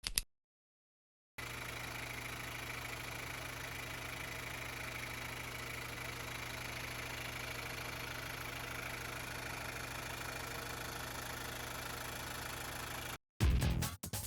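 Car engine idling steadily with an even hum, starting abruptly about a second in and cutting off suddenly near the end.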